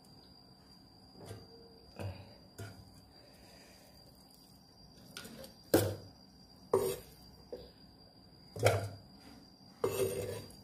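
Knocks and clatters of chunks of grilled meat being gathered off a wooden chopping block and dropped into a metal cooking pot. About nine separate knocks, the loudest four in the second half.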